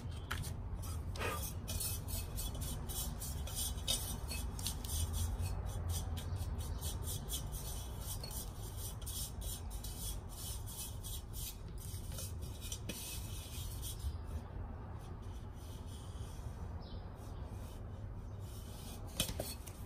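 Faint scratchy rubbing over a steady low hum.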